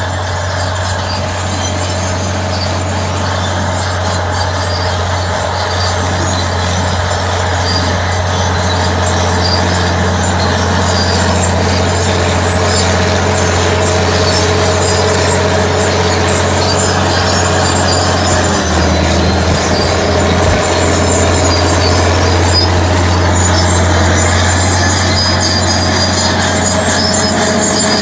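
Crawler tractor's diesel engine running steadily under load as it pulls a plow through the soil, with its steel tracks running. It gets gradually louder as the tractor comes close.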